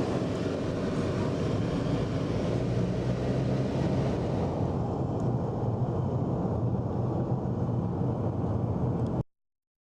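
A car driving away: steady engine and road noise that cuts off suddenly about nine seconds in.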